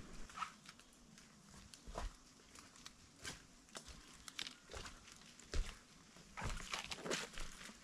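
Footsteps of a hiker walking a bush track, faint, about one step a second and quickening near the end.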